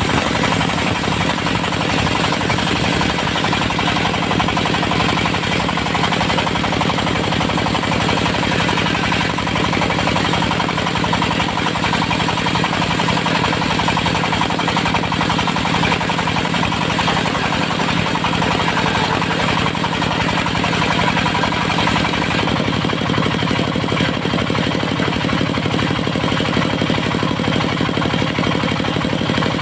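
Diesel-driven portable circular sawmill running steadily with rapid, even engine pulsing; the sound shifts slightly about three quarters of the way through.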